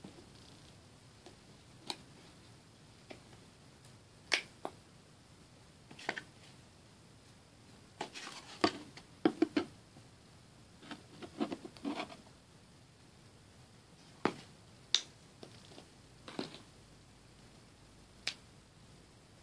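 Plastic acrylic paint tubes and bottles being handled over a paper plate: scattered sharp clicks and taps of caps and tubes, about twenty in all, with quiet gaps between them. Around the middle they bunch into quick runs as paint is squeezed out of a tube.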